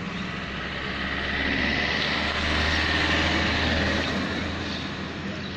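A motor vehicle passing along the road: a low engine rumble and tyre hiss that swell to a peak about halfway through and then fade.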